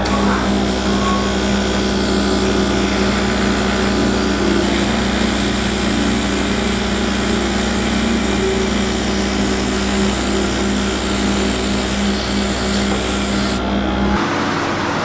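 Airbrush hissing as it sprays paint, over the steady hum of its air compressor. The hiss stops a little before the end, and the hum soon after.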